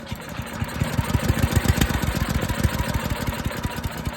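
Wood chipper's small gasoline engine running, a fast even train of firing pulses that gets louder about a second in and eases slightly near the end. The engine has a troublesome carburetor.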